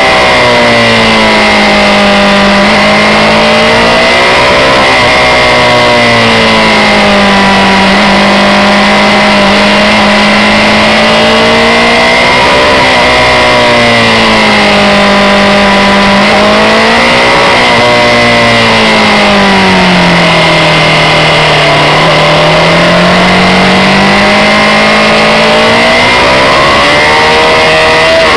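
Honda CB600F Hornet's inline-four engine running while the bike is ridden, its pitch rising and falling smoothly several times as the throttle is rolled on and off, with a steady high whine over it.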